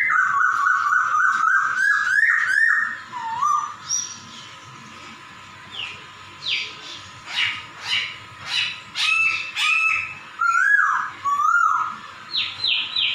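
Caged poksay (laughingthrush) calling with the cat-like mewing notes it is known for. A run of wavering notes comes first, then a string of short downward-sliding calls with brief gaps between them.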